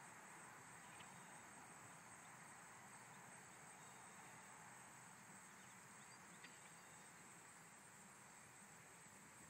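Near silence outdoors: a faint, steady, high-pitched insect chorus, with a couple of tiny clicks.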